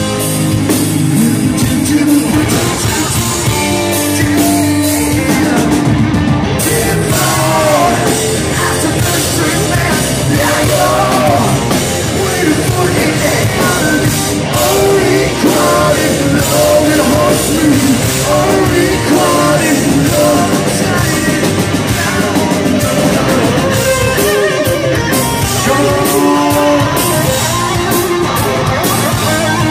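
Live hard rock band playing loudly: distorted electric guitars, bass and drum kit, with a singer's voice over the band through most of the stretch.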